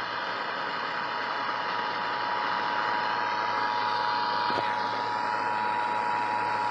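Emergency Alert System attention signal: the steady two-tone alert tone of 853 and 960 Hz sounding together without a break, over a background of hiss and low hum.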